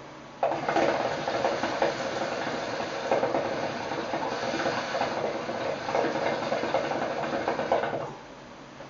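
Water in a Nargilem NPS shisha bubbling steadily as two people draw on its hoses. The bubbling starts about half a second in and stops suddenly about eight seconds in.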